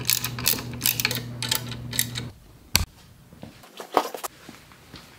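Ratchet wrench clicking in quick, uneven strokes as it tightens the bolts holding a steel trailer leaf spring to a motorcycle fork clamp, over a steady low hum. About two seconds in the hum cuts off, and a few quieter knocks follow.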